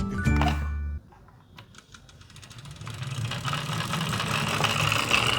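Small die-cast toy car rolling along a toy track: a dense, fast clicking rattle of its wheels that grows steadily louder.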